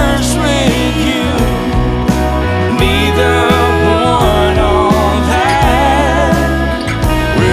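Background music: a song with steady bass and a wavering lead melody line.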